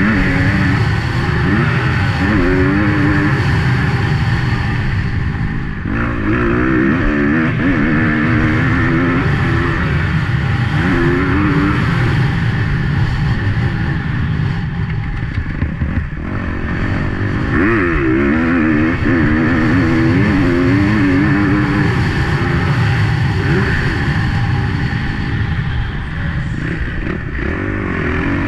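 Motocross bike engine at race pace, revving up and dropping back over and over as the rider shifts and works the throttle through the track's sections.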